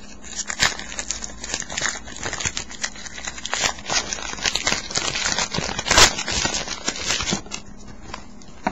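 Trading-card pack wrapper crinkling and crackling as it is handled and torn, a dense run of crisp crackles with one sharp crack about six seconds in, thinning out near the end.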